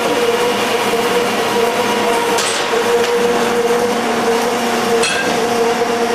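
Beaver 6 metal-cutting band saw running, its blade sawing through a chain-clamped bundle of steel pipes: a steady sawing noise over a steady machine hum, with a couple of brief ticks.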